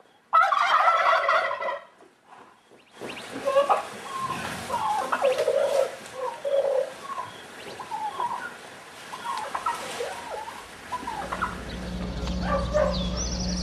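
Animal calls: one loud call about half a second in, then a run of short, quick calls. A steady low hum comes in near the end.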